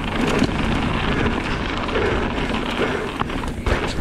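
Mountain bike descending a dirt trail at speed: a steady rush of wind on the microphone and tyre noise, with the bike rattling over the ground and a couple of sharp knocks near the end.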